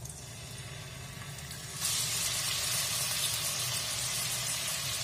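Boneless chicken pieces frying in hot oil in a nonstick wok: a steady sizzle that starts suddenly about two seconds in, after a quieter first part.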